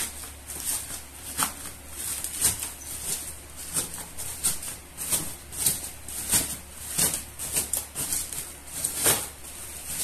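Black plastic courier bag crinkling and rustling as it is handled and pulled open by hand, in many irregular crackles, over a steady low hum.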